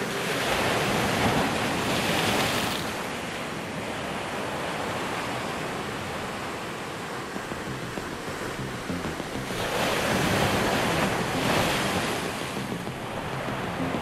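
Small sea waves breaking and washing against a stone seawall, a steady surf hiss that swells twice: once near the start and again about two-thirds of the way through.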